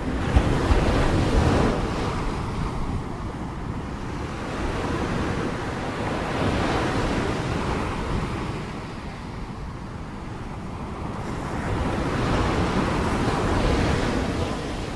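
Sea waves breaking and washing in, swelling three times about six seconds apart, with wind rumbling on the microphone.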